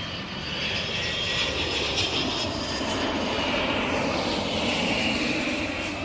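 Twin-engine jet airliner climbing out at takeoff thrust: a steady jet roar with a high engine whine, growing louder through the middle and easing off near the end.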